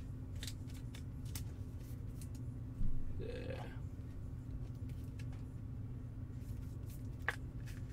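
A steady low hum, with a few faint clicks of a trading card and a plastic card sleeve being handled. About three seconds in comes a short, throaty sound from a person, lasting about half a second and rising slightly in pitch.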